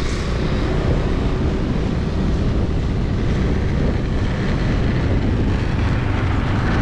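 Wind buffeting the microphone of a pole-held action camera on a moving Honda scooter, steady and loud, with the scooter's small engine running underneath.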